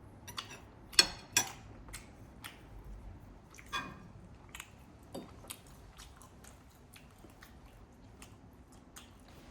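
Eating and table sounds: a few sharp clicks about a second in and again near four seconds, then faint scattered small ticks and chewing.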